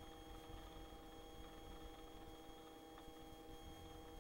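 Near silence, with only a faint steady electrical hum of a few pitched tones.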